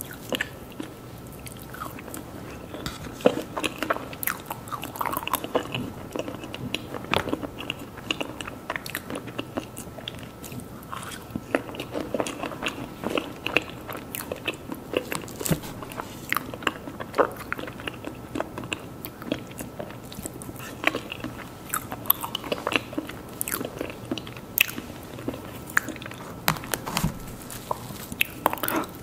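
Close-miked eating of mousse cake: soft biting and chewing, with many short irregular mouth clicks.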